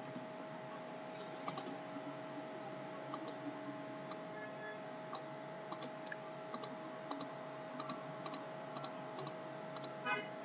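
Computer mouse clicking faintly as anchor points are placed with the pen tool: short irregular clicks, many in quick pairs, over a faint steady hum.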